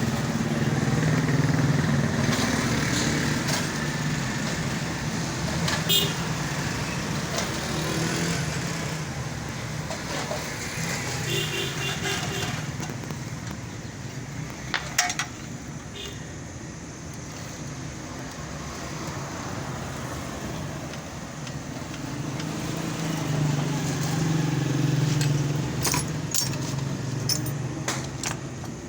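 Road traffic with motor vehicles and motorbikes passing, their engine noise swelling at the start and again late on, with a few sharp clicks in between.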